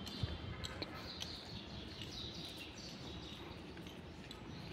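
Steady outdoor background noise with a few faint, high bird chirps.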